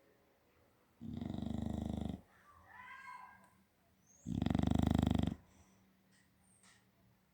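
A bulldog snoring in its sleep: two long, rattling snores about three seconds apart, the second louder. A fainter wavering whistle of breath comes between them.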